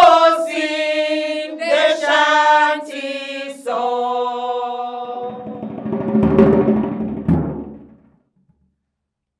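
A man singing a few long held notes unaccompanied, with short breaks between them, the last one turning rougher and lower before fading out about eight seconds in.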